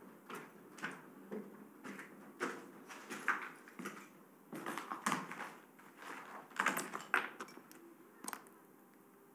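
Footsteps crunching on a debris-strewn floor, mixed with the rustle of a long coat, in an uneven run of steps about every half second. The steps stop shortly before the end.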